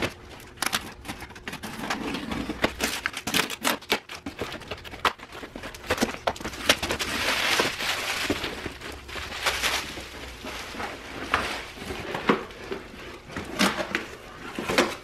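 A cardboard shipping box being unpacked: tape and cardboard flaps pulled open with scattered clicks and scrapes, then plastic packing material crinkling loudly as it is pulled out about seven seconds in, and boxed parts knocking on the table near the end.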